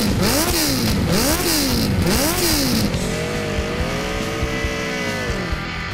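Sport motorcycle engine revved up and down three times in quick succession, then held at high revs for a couple of seconds before dropping back.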